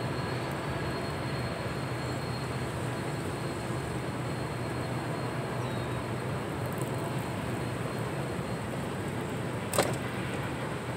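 A freight train's cars rolling past: a steady rumble of wheels on rail, with one sharp knock near the end.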